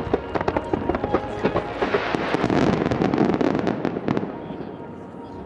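Fireworks finale volley: rapid, overlapping bursts and crackling shells that thin out and fade after about four seconds.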